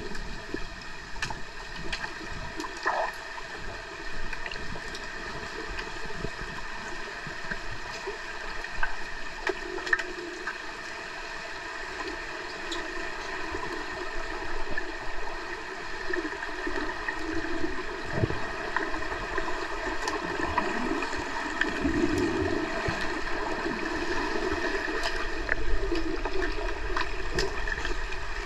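Underwater swimming-pool ambience heard through a submerged camera: a steady muffled wash of water noise with scattered sharp clicks and knocks.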